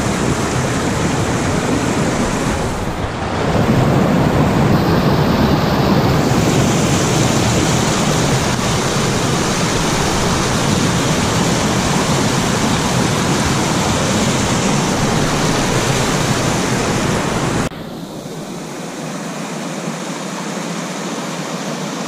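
River water pouring over a rock ledge in a small rapid, a loud, steady rush of white water heard close by. About three seconds in it dips briefly, and about eighteen seconds in it drops to a quieter, thinner rush.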